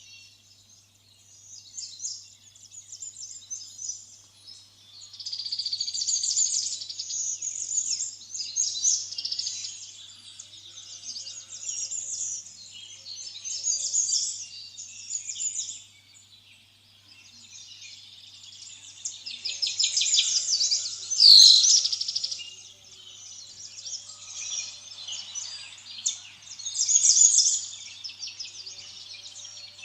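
Small birds chirping and twittering in rapid trills, in bursts that come and go, over a faint steady low hum.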